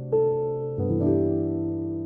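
Soft instrumental music on piano or electric piano: sustained chords, with a new chord struck near the start and another just under a second in.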